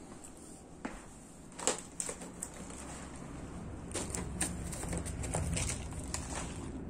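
Scattered crinkles and sharp clicks of a plastic-wrapped package being picked up and handled, in quick clusters around two seconds in and again from about four seconds in, over a steady low hum.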